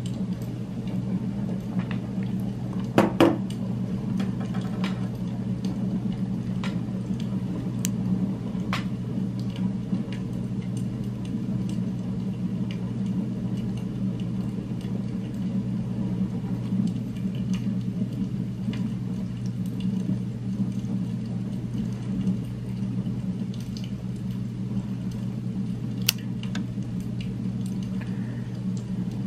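Steady low droning hum from an added ambient background sound, with a few sharp clicks and taps from a metal Fisher AG7 Space Pen being handled. The loudest click comes about three seconds in.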